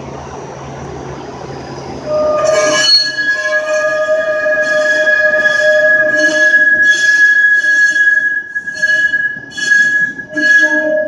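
TTC Bombardier Flexity Outlook streetcar pulling away around a tight curve. After a low steady hum, its wheels start squealing against the rail about two seconds in: a loud, sustained multi-tone screech that wavers and pulses, the flange squeal of the tight curve.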